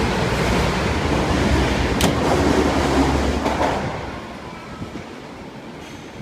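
Osaka Metro 22 series subway train pulling out of the platform, its running rumble loud at first and then fading away about four seconds in. A single sharp click about two seconds in.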